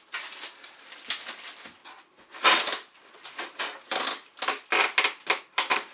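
Plastic packaging film rustling and crinkling in irregular bursts as parts are unwrapped. The loudest burst comes about two and a half seconds in, followed by a run of quick, short rustles near the end.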